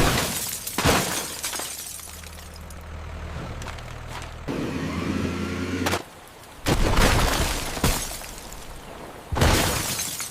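A series of about six sharp crashing and smashing impacts with a breaking, shattering quality. A low steady mechanical hum runs beneath them until just past the middle.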